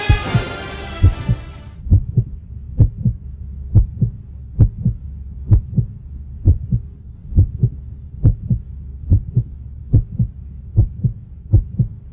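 Heartbeat sound effect: a steady double thump, like lub-dub, about once a second over a low hum. The tail of the music fades out in the first two seconds.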